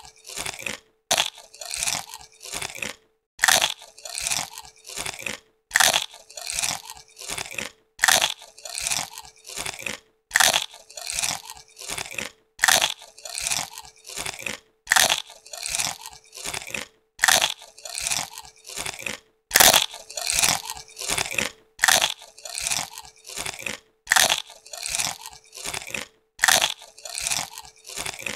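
Crisp potato chips crunching as they are bitten and chewed, in clusters of several sharp crunches about every two seconds with brief silent gaps between.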